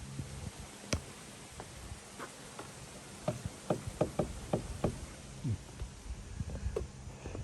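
Sharp knocks: one about a second in, then a run of about seven uneven knocks in under two seconds around the middle, over a faint low hum.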